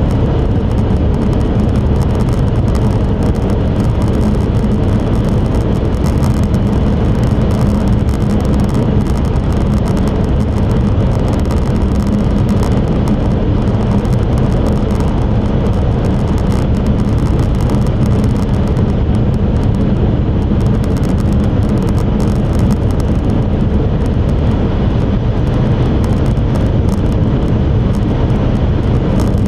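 Steady in-cabin running noise of an E5 series Shinkansen at high speed: a constant low rumble with a steady hum, heard inside the passenger car.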